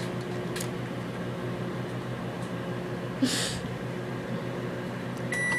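Microwave oven running with a steady low hum, heating a piece of lettuce. Near the end its beeper sounds one long high tone as the cooking time runs out.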